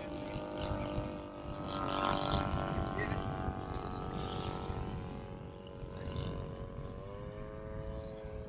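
A radio-controlled model propeller airplane flying overhead, its motor and propeller droning steadily. The pitch rises a little about seven seconds in as the throttle changes.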